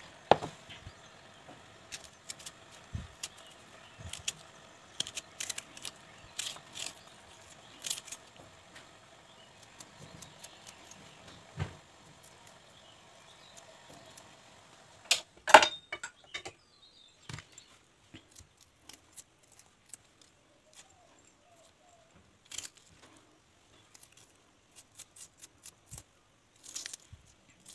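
Scattered small clicks, crackles and taps of red onion being broken apart and peeled by hand over a plastic container, with one sharper clack about halfway through.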